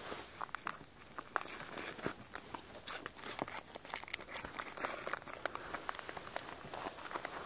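Quiet hand-handling noises: scattered light clicks and ticks with some crinkling as the pot and cake are handled.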